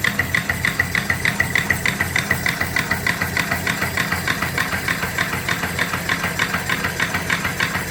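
Reproduction antique 3 hp steam engine (3-inch bore, 4-inch stroke), powered by its own boiler, running steadily with a fast, even beat of exhaust chuffs up the stack.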